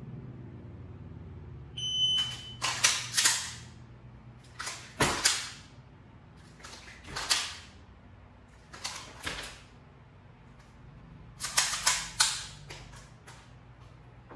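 A shot timer's high electronic start beep about two seconds in, followed by sharp metallic clicks in five clusters as a pistol is dry-fired: trigger snaps and handling of the gun, ringing off the hard tiled room.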